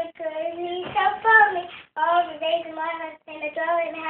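Five-year-old girl singing alone, in short phrases of held notes with brief pauses between them.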